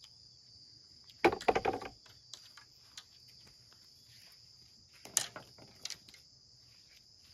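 Steady high-pitched chirring of insects, with two short bursts of clattering handling noise: a longer one about a second in and a shorter one about five seconds in.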